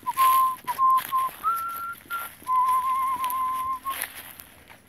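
A person whistling through the lips, calling the dogs: a few short notes at one pitch, a briefly higher note, then a long wavering note.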